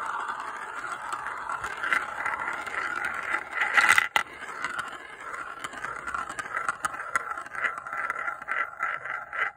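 Glass cat's-eye marbles rolling round and round a plastic marble-run funnel bowl, a steady scraping whirr. About four seconds in, a louder clatter as a marble drops down the centre tube.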